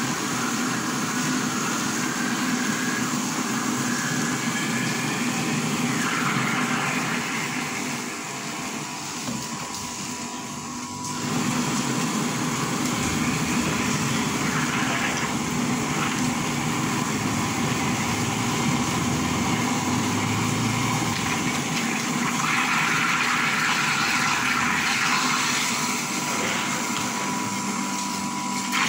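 Electric soy milk grinding machine running steadily, grinding soaked soybeans with water into soy milk; it goes briefly softer about ten seconds in.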